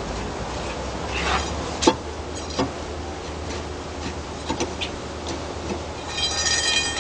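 Scattered sharp knocks and clicks from hand work on concrete wall panels, the loudest about two seconds in, with a brief high-pitched squeal near the end.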